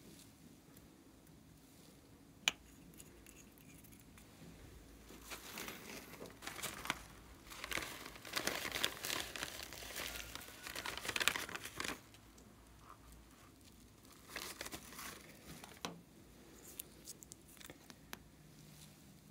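Crinkling, rustling handling noise, thickest in a long stretch through the middle and again briefly later, with a few sharp clicks.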